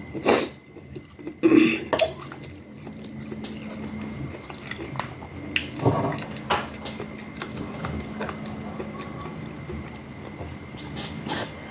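Someone eating rice-noodle soup: wet slurps and sips, with sharp clicks of utensils against the bowl. The loudest slurps come near the start and again about six seconds in.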